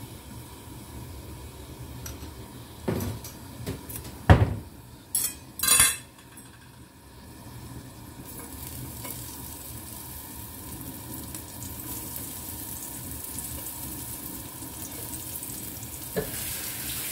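A few sharp knocks of a spoon against metal dishes, then garlic cloves going into hot oil in a nonstick pan and sizzling steadily from about halfway in.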